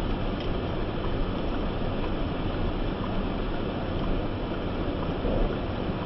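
Steady road and engine noise of a vehicle driving: an even, low hiss with a few faint ticks.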